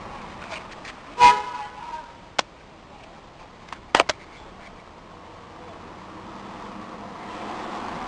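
A short, loud horn-like toot about a second in, over a steady outdoor background hiss, followed by a few sharp clicks around two to four seconds in.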